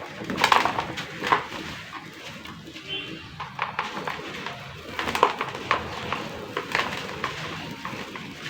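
Dried, crispy brick-red sand-cement paste crumbling and breaking apart, in irregular crisp crackles and snaps, some in quick clusters.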